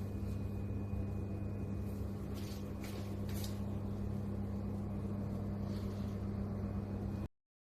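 Washing machine running with a steady electric-motor hum, with a few brief rattles about three seconds in.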